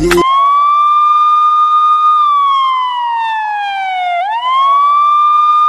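A siren wailing: the pitch shoots up and holds high for about two seconds, slides slowly down over the next two, then sweeps quickly back up about four seconds in and holds again.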